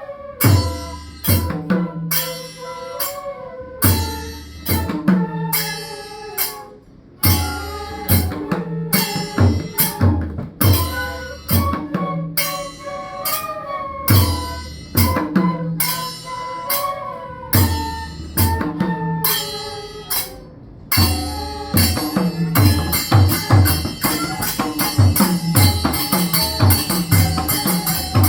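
Mridanga, the Newar double-headed hand drum, playing a rhythmic pattern of deep, booming bass strokes and lighter strokes, with a wavering melody line above. About two-thirds of the way in, the playing turns denser and faster, with a shimmering metallic layer on top.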